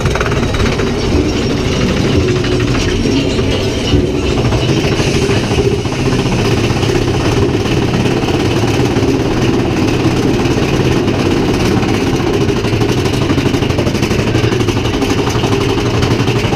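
Big Thunder Mountain Railroad mine-train roller coaster running along its track, heard from on board as a loud, steady rumble with a constant rattle.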